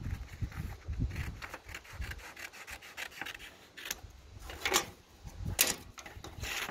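Scissors cutting a sheet of coloured paper in a run of short snips, with the paper rustling. Near the end the cut pieces are laid on a wooden table and the paper is pressed flat to fold it, giving a few louder rustles.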